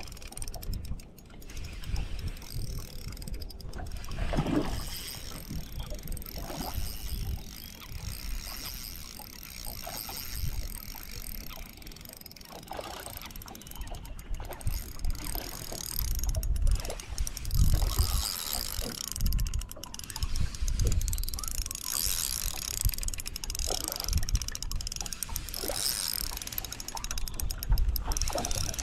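Wind buffeting the microphone in uneven gusts, strongest a little past halfway and near the end, over water lapping against a small fishing boat's hull. A spinning reel clicks now and then as the lure is wound in.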